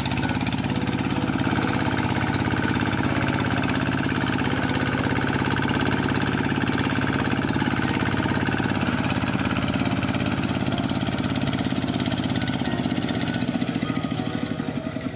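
Single-cylinder diesel engine of a two-wheel hand tractor running steadily as it plows a flooded rice paddy, easing off slightly near the end.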